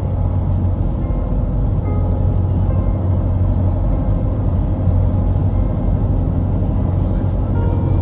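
Steady low road rumble of a moving car: engine and tyre noise at cruising speed.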